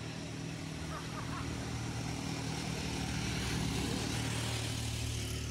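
A motor vehicle's engine running steadily at a low, even pitch, getting a little louder around the middle.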